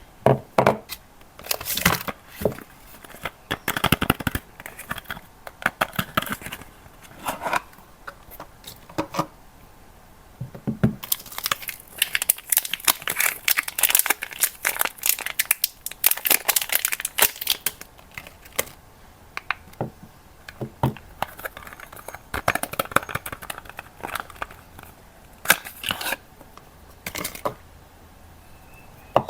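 Soap bar wrappers being torn open and crumpled by hand: irregular crinkling and tearing with sharp crackles, busiest in a long flurry around the middle.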